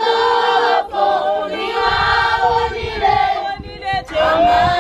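A group of schoolchildren singing together unaccompanied, a choir of mixed voices holding long notes in phrases with short breaks between them.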